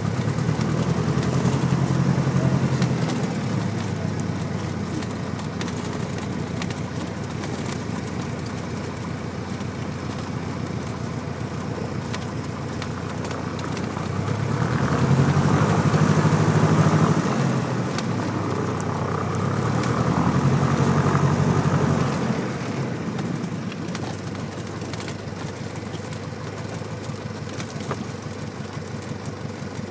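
Single-engine Cessna's piston engine and propeller running at low power as heard inside the cabin. It swells louder three times, about a second in, about halfway through and again a few seconds later, then settles back to a steady lower drone.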